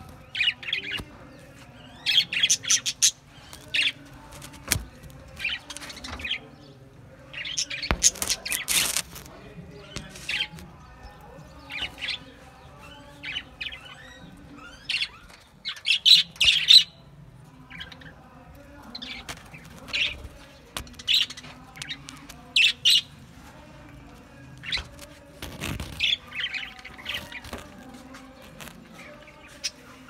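A flock of budgerigars chirping and chattering: many short, high chirps coming in irregular clusters.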